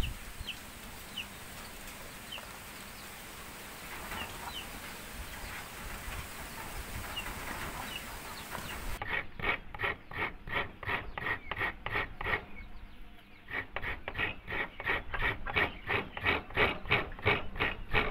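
A coconut half is grated by hand in quick, even rasping strokes, about two to three a second, with a short pause partway through. Before the grating starts, the sound is quieter, with faint short bird chirps.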